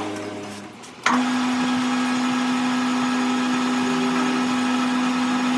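A machine starts abruptly about a second in and runs with a steady, even hum at one fixed pitch.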